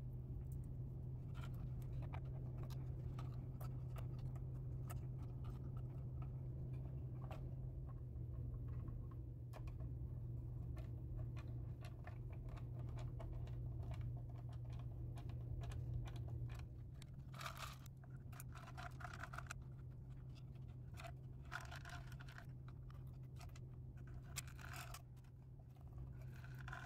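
Small clicks, taps and scrapes of a screwdriver and metal parts as a brass cuckoo clock movement is fitted and screwed into its wooden case, with several longer rasping scrapes in the last third. A steady low hum lies underneath and drops back about two-thirds of the way through.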